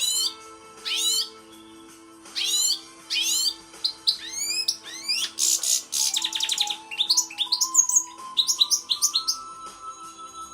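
European goldfinch song: quick sweeping high notes, then a fast buzzy trill about halfway through, followed by a run of rapid twittering notes.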